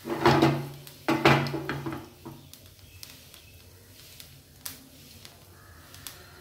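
Nigella seeds and dried red chillies frying in hot oil in a nonstick frying pan as a spice tempering. There are two loud bursts in the first two seconds, then faint scattered crackles and pops.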